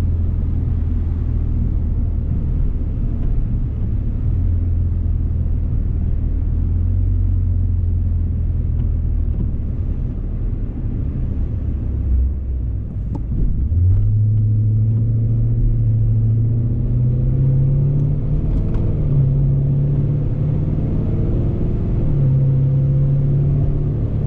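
A car's engine and tyres on a wet road heard from inside the cabin: a steady low engine drone that, about halfway through, picks up and rises in pitch in steps as the car accelerates.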